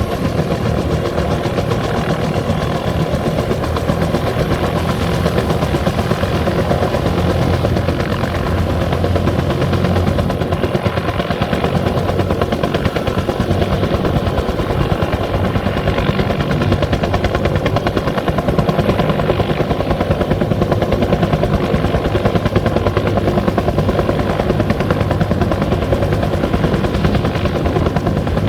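Bell 205 helicopter running steadily, its two-blade main rotor giving a rapid, even beat over the turbine's sound.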